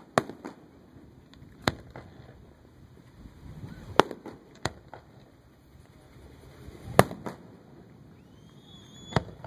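Aerial fireworks shells bursting overhead: about eight sharp bangs at uneven intervals, the loudest about four and seven seconds in.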